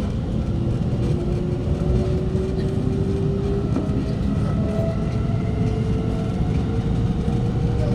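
Alstom Movia R151 metro train running, heard from inside the carriage: a steady rumble of wheels on track under a thin propulsion whine that climbs slowly in pitch as the train gathers speed.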